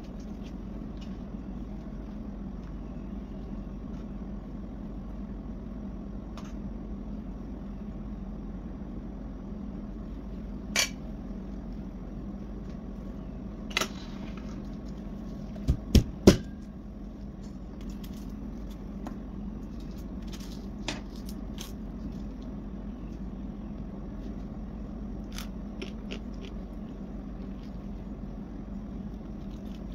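A fork clinks against a steel serving tray while a pita is filled with cooked tripe. A few sharp clicks sound over a steady low hum, the loudest a quick cluster of three about halfway through.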